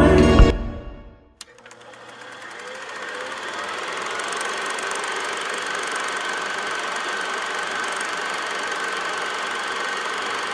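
A piece of music ends just after the start. After a single click, a steady mechanical whir with a fine clatter fades in over a few seconds and holds: the running sound of a film projector.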